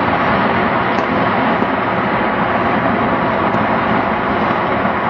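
Many fireworks and firecrackers going off at once, merging into one steady, loud din with no single bang standing out.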